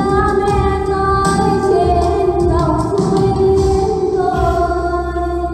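A woman singing karaoke into a handheld microphone over backing music, amplified through loudspeakers. She holds long, gliding notes over a steady low beat.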